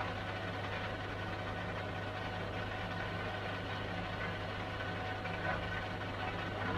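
Metal lathe running steadily while a boring bar cuts the inside of a free-cutting mild steel part: a constant motor hum with a faint steady whine and the light hiss of the cut.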